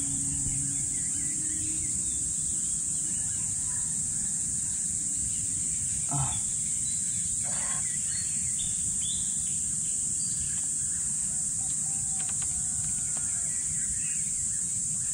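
Steady high-pitched chorus of insects, with a few brief bird chirps and a low rumble beneath.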